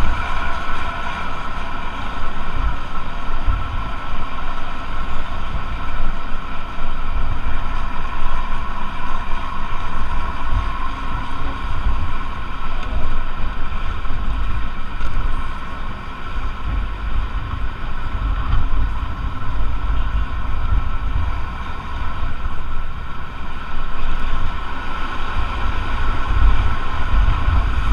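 Intercity bus running at speed, with a steady whine over a low rumble and wind buffeting the microphone.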